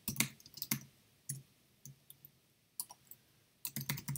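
Typing on a computer keyboard: a quick run of keystrokes, a few single keys with pauses between them, then another quick run near the end.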